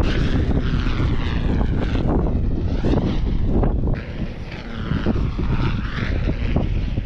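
Strong wind buffeting the microphone in a steady rumble, with a rushing whoosh that rises and falls several times as a large power kite sweeps through the air.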